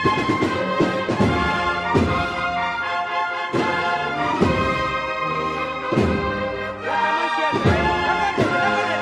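Music with brass instruments holding sustained chords over a steady beat of low thumps, roughly one a second.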